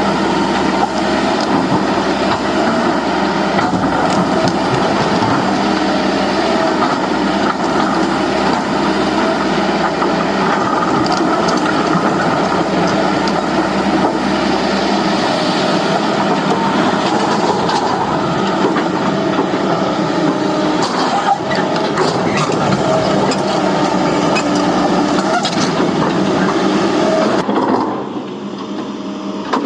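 Hydraulic excavator's diesel engine running steadily under load, with repeated knocks and clatter of rock and steel as it works. The sound falls away suddenly near the end.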